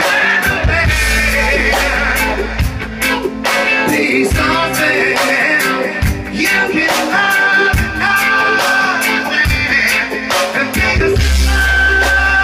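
Live band music: a man singing hard into a microphone over a strummed acoustic guitar, with a backing beat and heavy bass.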